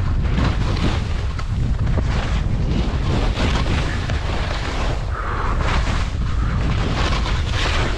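Skis scraping and hissing through chopped, firm snow in a string of quick turns, under a heavy low rumble of wind buffeting the camera's microphone.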